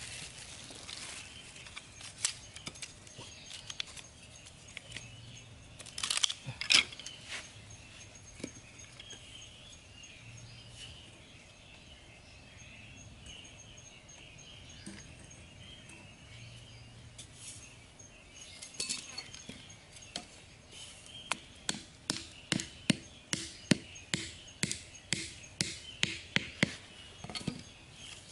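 A bamboo stake being knocked into sandy ground: a few scattered clicks, then from about two-thirds of the way in a run of sharp knocks, about two a second. A faint high insect drone sits underneath.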